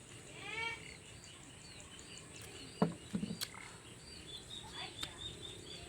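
Small bird chirping over and over at a quick even pace, with a steady high whine behind it. There is a brief pitched call near the start, and a sharp knock followed by a few smaller knocks about halfway through.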